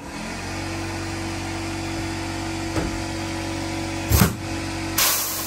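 A pneumatic rivet gun sets a pop rivet in sheet metal: a sharp thump about four seconds in, then a short blast of hissing air a second later. A steady machine hum runs underneath.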